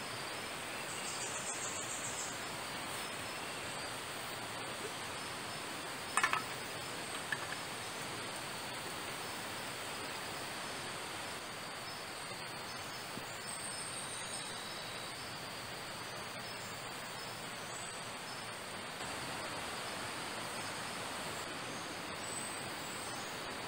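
Tropical forest ambience: an even, steady hiss with insects buzzing high and short insect trills now and then, and one brief sharp sound about six seconds in.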